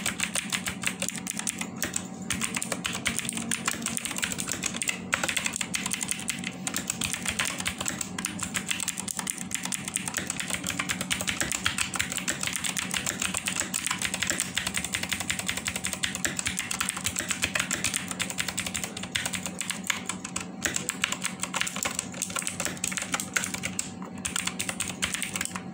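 Fast continuous typing on a SteelSeries Apex 7 TKL mechanical keyboard with clicky blue switches: a dense, unbroken stream of key clicks.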